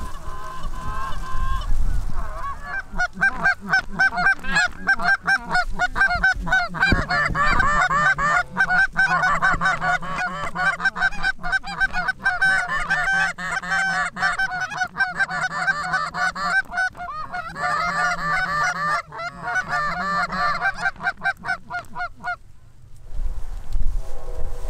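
Several hand-blown goose calls honking and clucking rapidly without pause, from a few seconds in until near the end, imitating a feeding flock to draw in passing geese.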